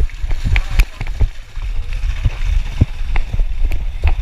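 KTM 450 EXC single-cylinder enduro engine running at low revs, with a steady low rumble and many irregular knocks and clatters.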